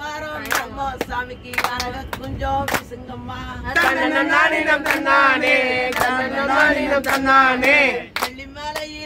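Men and women singing a Tamil kummi folk song together, with sharp hand claps about twice a second keeping the beat; the singing grows louder about four seconds in.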